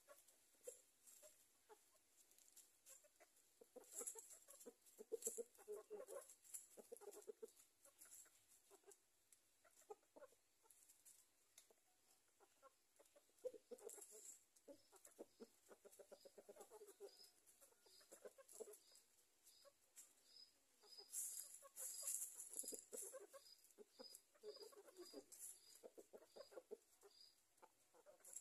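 Free-ranging chickens, a rooster and hens, foraging in dry leaf litter: rustling and pecking come in bursts, with soft clucks among them. A faint high chirp repeats about every two-thirds of a second through the second half.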